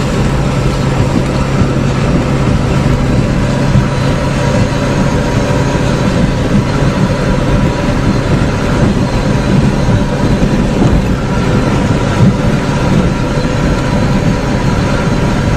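Steady engine and road noise heard from inside a vehicle travelling at highway speed. A low engine hum stands out for the first few seconds, then blends into the constant rumble.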